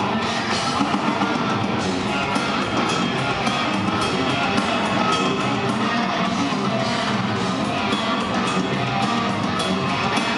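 Heavy metal band playing live: distorted electric guitars over fast drumming, heard from within the audience as one loud, dense wall of sound.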